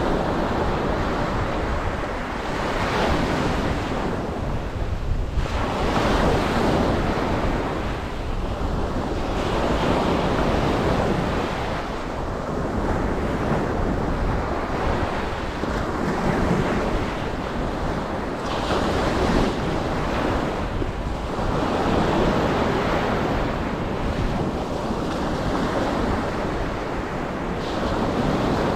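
Ocean waves breaking and washing up a beach, the surf swelling and easing every few seconds, with a steady low rumble of wind on the microphone underneath.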